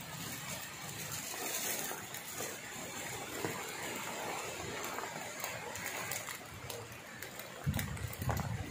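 Typhoon wind and rain: a steady hiss of heavy rain with many small drop impacts and gusts of wind. Near the end come a couple of stronger low rumbles of wind buffeting.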